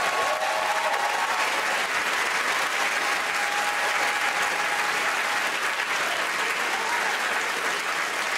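Studio audience applauding steadily, with a few voices calling out near the start.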